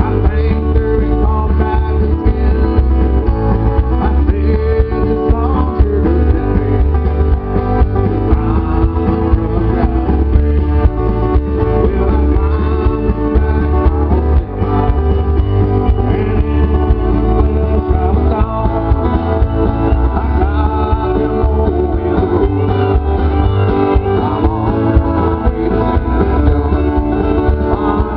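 Live amplified country song: electric guitar over a steady bass line, with a man singing at times.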